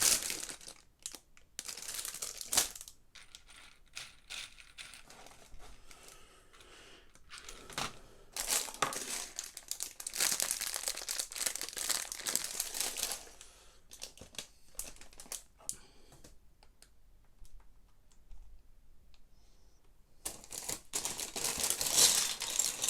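Plastic parts bags crinkling while loose Lego Technic pieces click and rattle as they are rummaged through. There are louder stretches of crinkling around the middle and near the end.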